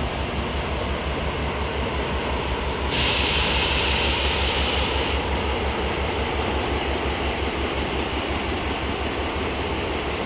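ALCO FPA and S1 diesel locomotives, with a passenger coach behind, running across a steel girder bridge: a steady low engine throb under a broad rumble. A hiss comes in about three seconds in and stops suddenly about two seconds later.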